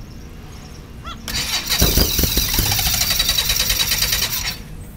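Beechcraft Musketeer's electric starter cranking the aircraft engine for about three seconds, turning the propeller over with a fast, even pulse and a few heavy low thumps near the start. The engine does not catch, and the cranking stops abruptly.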